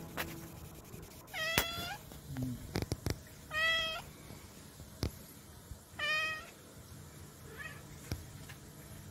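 Cat mewing: three short, even-pitched calls about two and a half seconds apart, with a faint fourth near the end and a few soft clicks in between.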